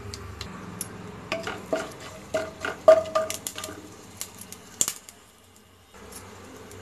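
A spatula stirring whole spices frying in ghee in a nonstick pan: a run of sharp knocks and scrapes against the pan over a faint sizzle, the knocks stopping about five seconds in.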